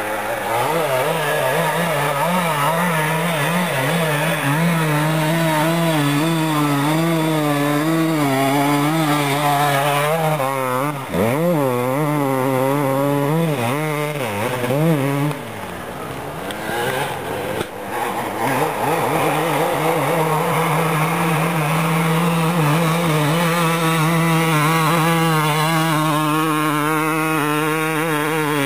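Dirt bike engine revving hard up a steep dirt hill climb, the throttle rising and falling in quick waves. It eases off briefly about halfway through, then holds a steadier, high note again.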